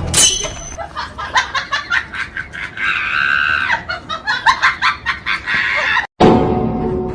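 A chicken clucking: a run of short, quick calls, one after another, for about six seconds. It cuts out abruptly and music starts near the end.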